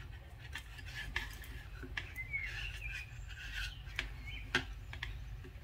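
Thin metal knitting needles clicking and scraping lightly against each other while stitches are bound off: a scattering of faint ticks over a low steady hum.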